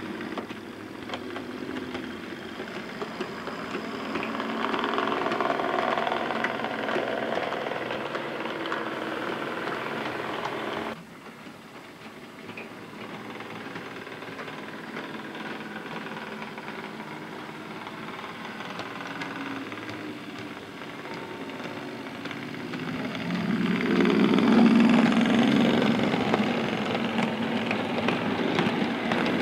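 OO gauge model Class 35 Hymek diesel locomotive and freight wagons running on the track: a steady whirr from the small electric motor with the rumble and clatter of the wheels on the rails. The sound drops suddenly about eleven seconds in, then grows louder near the end as the train passes close.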